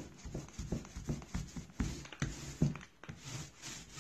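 Foam paint roller rolling wet paint across a dishwasher's metal panel, a series of short, soft knocking rubs about two or three times a second.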